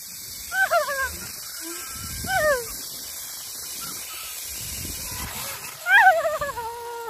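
A person's high-pitched excited yells while riding a zipline: two short cries in the first few seconds, then a longer falling "whoo" near the end, over wind rumbling on the microphone.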